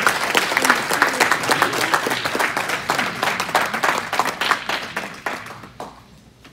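Audience applauding, many hands clapping at once, thinning out and fading away about five seconds in.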